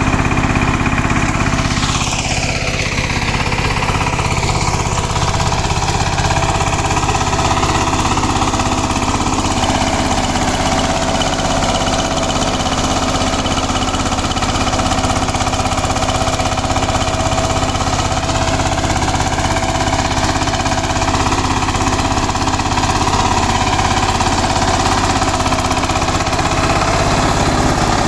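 KMW Kirloskar Mega T 15 HP power tiller's single-cylinder diesel engine running steadily under load while its rotavator works the soil, with a brief falling tone about two seconds in.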